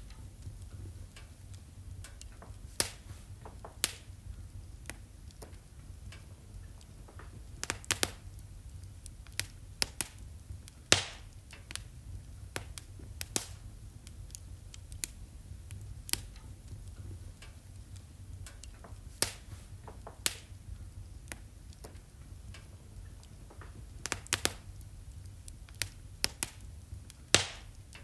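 Wood fire in a fireplace crackling, with irregular sharp pops every second or so over a low steady rumble.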